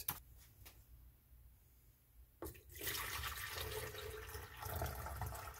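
Water poured in a steady stream from a plastic jug into a plastic pitcher, starting about two and a half seconds in just after a light click.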